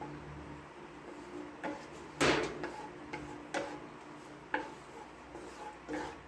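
Wooden spatula knocking and scraping against a nonstick wok while stirring a thick sauce: a handful of separate taps, the loudest about two seconds in.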